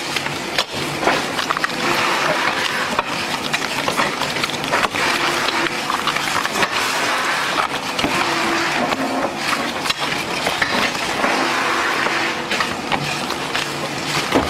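Dense, continuous rustling and clicking of paper playing cards and cardboard card boxes being handled and stacked quickly.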